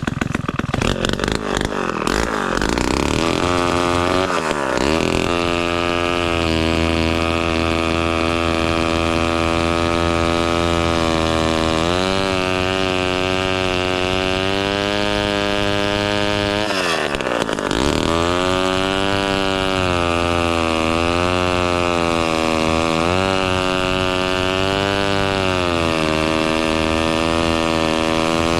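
1957 Danarm Fury chainsaw's 98cc Villiers 5F two-stroke engine running fast and steady. It runs ragged for the first couple of seconds, and its pitch drops sharply and climbs back about four seconds in and again about seventeen seconds in, with smaller wavers near the end.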